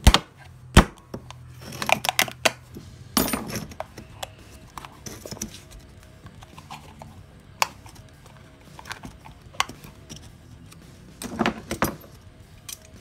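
Screwdriver punching and prying at the plastic cover of a satellite dish LNB, giving irregular sharp cracks and clicks, with a longer burst about three seconds in and another cluster of cracking near the end.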